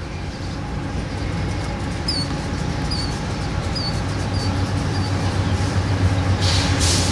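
Lash-up of BNSF GE Evolution-series (GEVO) diesel locomotives with V12 four-stroke engines, rumbling steadily and growing gradually louder as the train approaches. A few short high chirps sound over it, and there is a brief hiss near the end.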